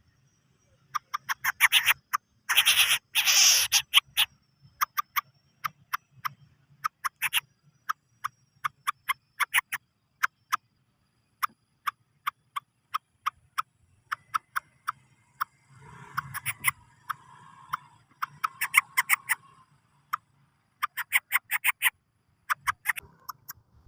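Lesser coucal (bubut alang-alang) making an unusual call: long irregular runs of short, sharp clicking notes, with thicker rapid bursts about two seconds in, again around sixteen to nineteen seconds, and once more near the end.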